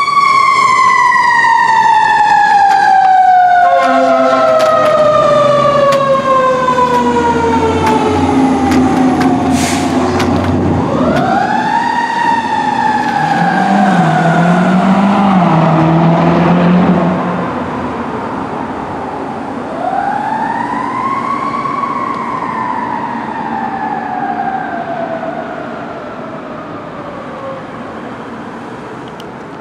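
Fire engine siren (2010 KME Severe Service pumper) wailing in long cycles that each rise quickly and then fall slowly over several seconds, three times, growing fainter as the truck drives away.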